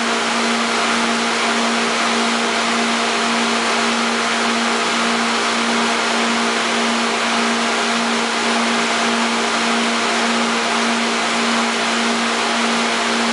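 Lobster-warehouse pumps running: a loud, steady hum with one constant low tone over an even hiss.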